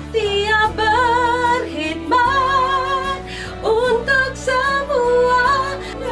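A woman singing a slow patriotic song in Malay, holding notes with wide vibrato in phrases a second or two long, over sustained backing chords.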